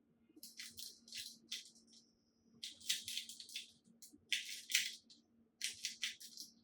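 A plastic 2x2 Rubik's cube being turned quickly by hand: clusters of fast, faint clicking and rattling as the layers snap round, in four bursts with short pauses between them.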